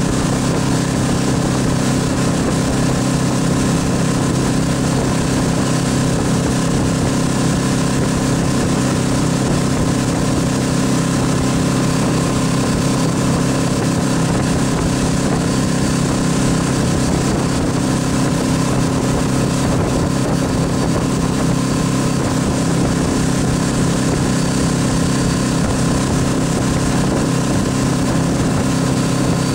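MasterCraft X2 tow boat's inboard engine running steadily at towing speed, with the rush of its churning wake. The engine note holds constant with no change in pitch.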